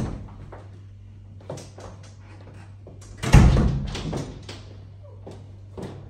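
A few light knocks, then one loud heavy thud a little over three seconds in, over a steady low hum.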